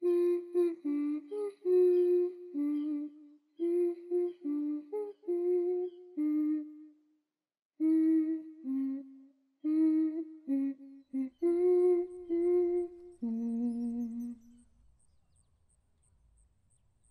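A high voice humming a slow, wordless tune in short phrases, which stops about two-thirds of the way in. After it, only a faint low rumble and a soft, regular ticking about twice a second remain.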